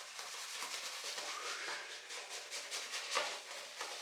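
Synthetic shaving brush whipping shaving soap into lather in a bowl: a continuous wet swishing with fine crackle and a few sharper clicks.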